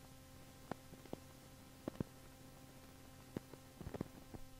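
Faint vinyl LP surface noise at the end of the side, with the music over: a low steady hum with about ten scattered clicks and pops, more of them in the last second.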